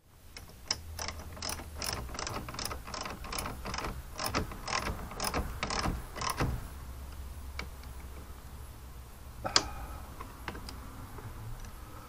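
Socket ratchet clicking in quick repeated strokes as a bolt is turned, about three clicks a second for some six seconds. It then goes quiet, with one sharp click near the end.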